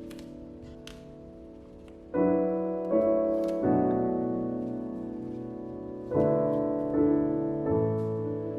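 Slow piano music: chords struck about two seconds in, twice more shortly after, then three more from about six seconds in, each one ringing and fading. A few faint clicks sound over it.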